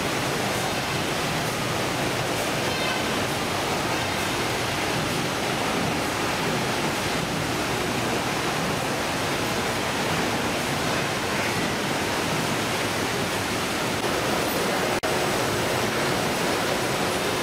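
Steady, even din of fish-processing machinery and conveyor lines running on a factory ship's processing deck, with a brief dip about fifteen seconds in.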